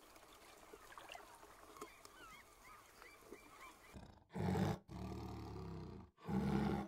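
A lion roaring in a few long, loud, deep calls starting about four seconds in. Before that there are only a few faint high chirps over a quiet background.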